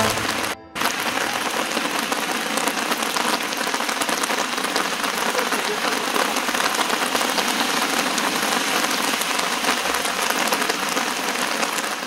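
Heavy rain falling steadily on paving and wet wooden decking in a downpour, after a brief dropout about half a second in.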